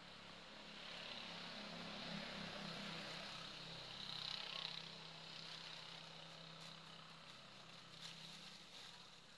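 Faint, steady hum of a distant engine, louder in the first half and fading toward the end, over a high hiss.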